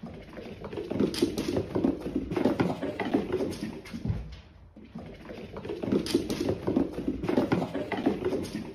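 Cats' paws pattering and thudding on a hard floor as they run and chase each other, in rapid bursts of footfalls with a short lull about halfway through.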